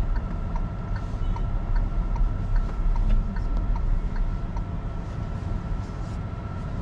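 Car cabin noise while driving slowly: a steady low rumble with a faint steady whine and scattered light ticks.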